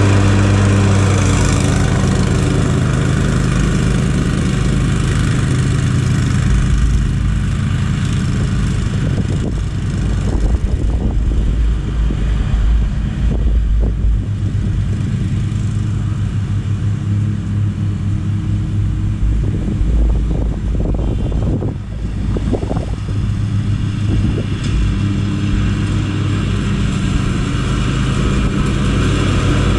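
Exmark zero-turn riding mower's engine running close by, then growing fainter as the mower drives off cutting grass, and louder again as it comes back toward the end.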